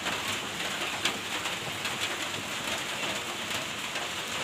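Steady rain, an even hiss with a sharp tick about a second in.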